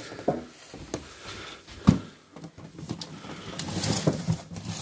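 A clear plastic cake container and plastic bags being handled and set into a refrigerator: a few sharp plastic knocks and clunks, the loudest about two seconds in, then crinkling plastic rustle from about three seconds in.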